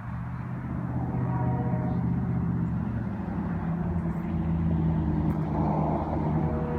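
Diesel locomotive engine rumbling and growing louder over the first second as it draws near. A multi-note horn chord sounds faintly about a second in and comes back near the end.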